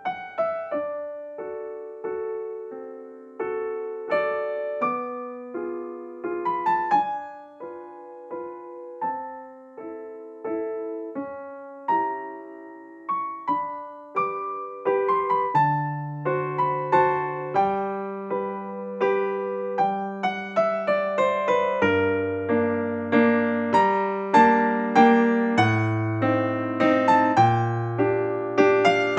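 Background music: a gentle piano tune of single notes, with lower bass notes coming in about halfway through and the playing growing fuller.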